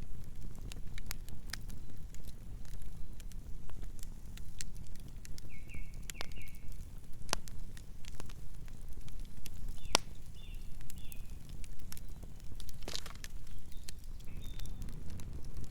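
Wood campfire crackling: irregular sharp pops and snaps over a steady low rumble of the flames, the loudest pop about ten seconds in. A few brief high chirps sound now and then.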